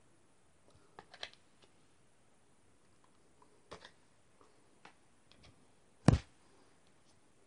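Scattered light clicks and taps from hands moving and touching while signing, with one sharp thump about six seconds in, the loudest sound.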